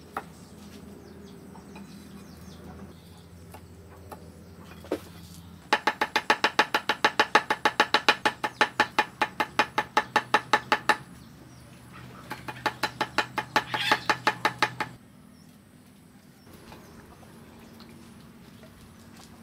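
Cleaver chopping fast on a thick wooden chopping block: a few single knocks, then a rapid even run of about five chops a second for some five seconds, and after a short pause a second, shorter run of chops.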